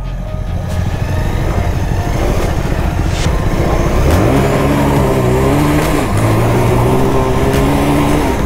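Bajaj Pulsar 220F's single-cylinder engine pulling the bike along a rough gravel track over a steady rush of wind and ride noise. About four seconds in the engine note rises, drops back around six seconds, then holds fairly steady.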